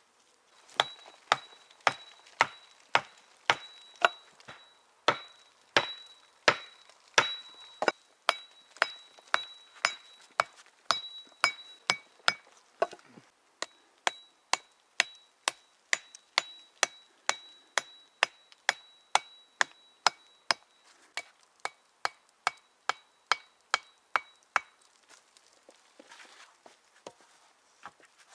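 Steady, regular strikes of a hand tool chopping into wood, about two a second, each with a short metallic ring. The strikes stop about three-quarters of the way through.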